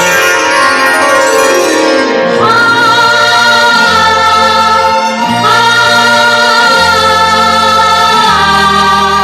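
Instrumental interlude of a 1980s Bollywood film song, between sung lines. It opens with a falling sweep over the first two seconds, then long held chords that change about every three seconds.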